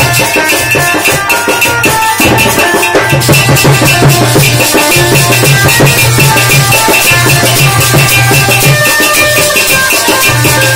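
Live amplified music played through a small amplifier: a melody of held notes over a steady pulsing beat with shaker-like percussion.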